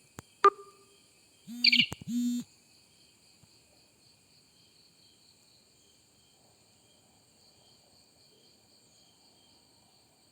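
A couple of sharp clicks, then two short, loud hoot-like notes of steady low pitch about two seconds in, over faint, steady, pulsing insect chirping.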